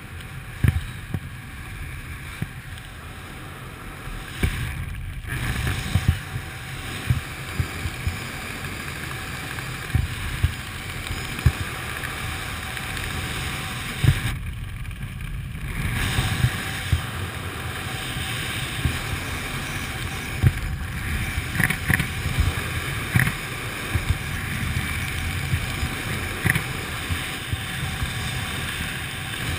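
Wind rushing over a skydiver's camera in the air, a steady rush broken by many short low thumps of buffeting, with two brief dips.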